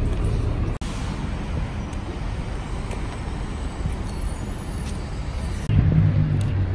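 Steady city traffic noise. A little under six seconds in, a louder low hum with a few steady tones comes in.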